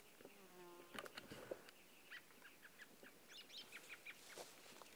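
Faint outdoor ambience: a brief buzz in the first second, a few soft clicks just after, then small birds chirping in short repeated notes.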